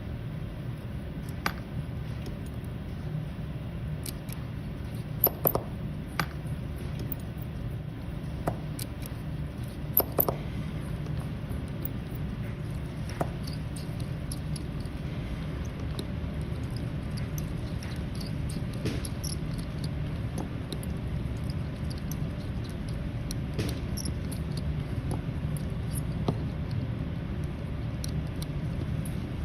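Scattered small clicks and taps of tools and parts against a digital watch's case and battery, a few seconds apart, over a steady low hum.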